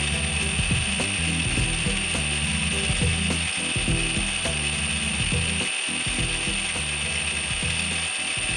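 Small metal lathe running, a steady high whine over an uneven low rumble, as a threaded steel part spinning in its chuck is polished by hand with an abrasive pad.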